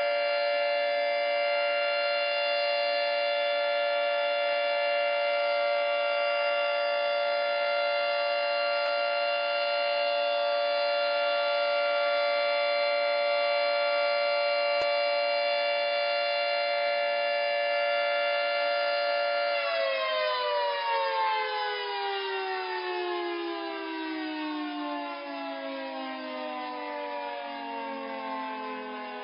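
Air-raid / tornado warning siren holding a steady pitch for about twenty seconds, then winding down, its pitch falling slowly and the sound growing a little quieter.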